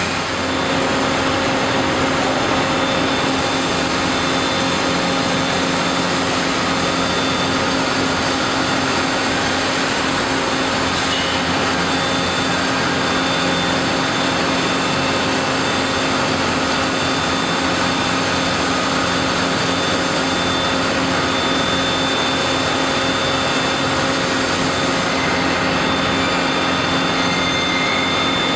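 Heavy industrial machinery running steadily: an even rush of noise with several steady humming and whining tones. It comes from a hot-coiling machine winding a red-hot steel bar into a large coil spring on its rotating mandrel.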